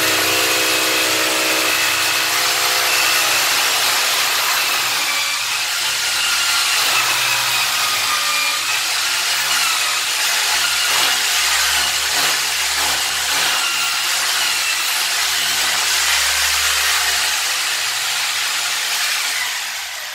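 Corded electric hammer drill running continuously as it bores a hole, its motor whine wavering slightly in pitch.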